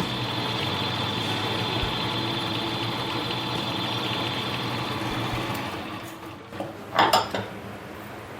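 Small benchtop lathe running steadily with a high whine and low hum, then winding down about six seconds in, followed by a couple of sharp clacks near the end.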